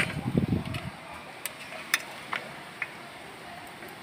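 Light metallic clicks and clinks of rear drum-brake parts being handled: a brake shoe and the brake drum. A short stretch of handling noise at the start, then four sharp clicks about half a second apart.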